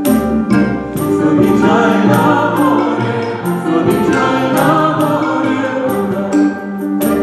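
Live music: a choir singing with a symphony orchestra, a steady beat marking time at the start, dropping away mid-phrase and coming back near the end.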